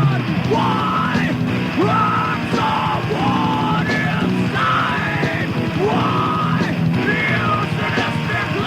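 Thrash metal band recording from a 1993 cassette: shouted vocals over distorted guitar, bass and drums, playing continuously.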